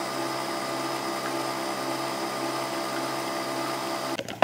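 Nespresso capsule coffee machine brewing, its pump and motor giving a steady hum with a few held tones while coffee pours into the mug. The hum cuts off just before the end.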